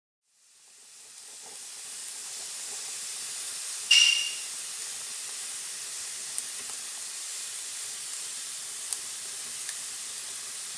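Wood fire burning with a steady high hiss and a few faint crackles, and one loud sharp pop about four seconds in. The sound fades in at the start.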